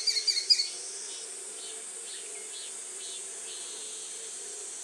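Chinese sparrowhawk giving its alarm call, the call used when another bird is at a distance. It is a rapid run of sharp, high notes that ends within the first second, followed by a fainter run of similar notes about two to three seconds in, over a steady high hiss.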